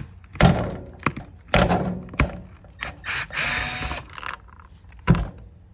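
Hard clunks and knocks of a Tesla Model S door handle assembly and hand tools being handled during disassembly, with a short scraping rasp a little past halfway and a last sharp knock near the end.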